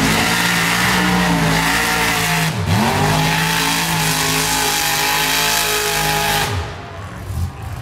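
Mud-bog pickup truck's engine held at high revs as its wheels spin through deep mud, throwing mud. The revs dip sharply and climb straight back once, then fall away near the end as the throttle eases.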